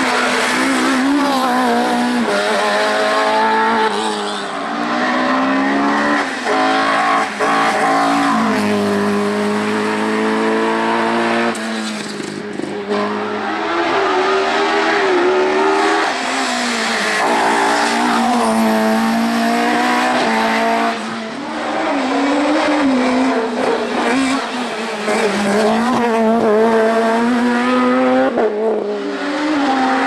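Hillclimb race cars, among them a Renault Mégane and a Ford Escort Mk2, accelerating hard up the course one after another. The engines rev high, and the pitch climbs and falls back over and over as the drivers shift gears and lift briefly for the bends.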